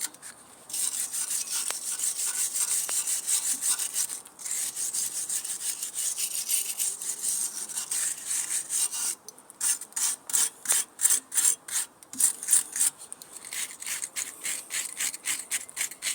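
Stiff brush scrubbing brake dust and road grime off front brake parts in fast back-and-forth strokes, about three or four a second, with a couple of brief pauses.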